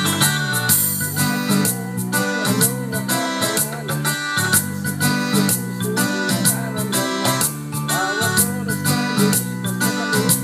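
Videoke karaoke backing track playing: keyboard-led pop music over a steady beat.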